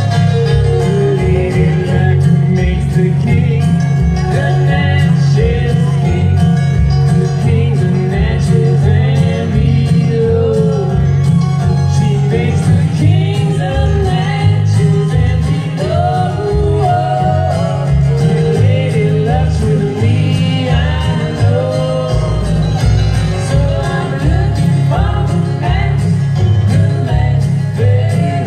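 Live acoustic string band playing a country-bluegrass song: acoustic guitars strummed and picked over an upright bass, with singing.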